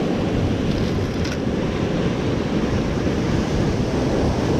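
Ocean surf breaking and washing over a rocky shoreline, a steady rushing noise, with wind buffeting the microphone.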